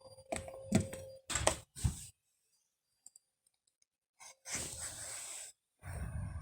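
Handling noise: several sharp clicks and knocks in the first two seconds, then a short hiss about four and a half seconds in and a low rumble near the end.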